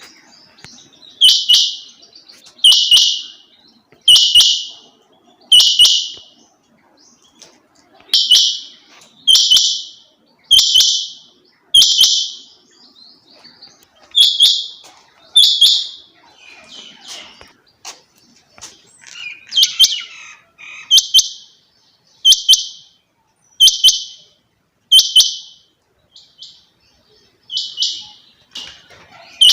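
A female quail calling over and over: short, high, clicky notes about every second and a half, in runs of two to six with brief pauses between runs.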